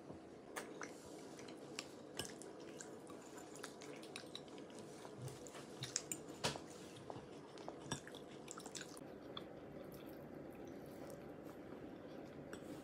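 Faint scattered clicks and taps of dishes and cutlery being handled at a meal, over a low steady hum.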